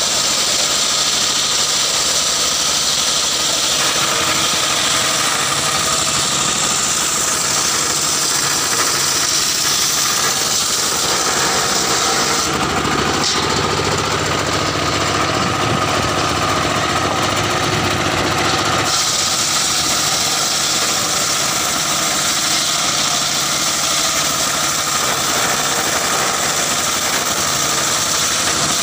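Engine-driven homemade circular sawmill ripping a mahogany log lengthwise, the blade cutting with a loud, steady noise over the engine's running. For about six seconds in the middle the cutting noise drops out and mostly the engine and free-spinning blade are heard, then the cut resumes.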